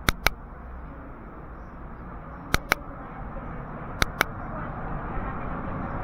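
Outdoor town-street background with a steady low rumble, punctuated by three pairs of sharp double clicks about a second and a half apart; the rumble swells toward the end as a vehicle draws near.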